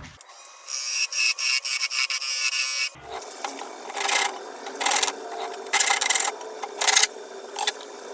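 A file or rasp scraping on an oak knob being shaped by hand: a quick run of strokes for about two seconds, then slower single strokes about once a second.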